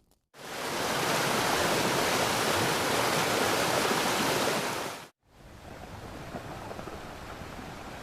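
A loud, steady rushing noise, like rushing water or static, cuts in just after the start and stops abruptly about five seconds in. A quieter, slightly uneven rushing noise then follows, like surf or wind.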